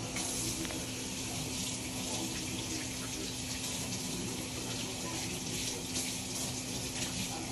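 Kitchen tap running steadily, water splashing into the sink.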